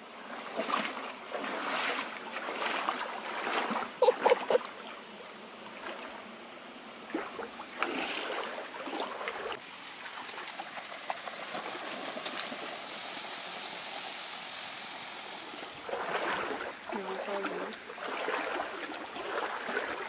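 A stream running steadily, with scattered knocks and rustles on top; the loudest is a cluster about four seconds in.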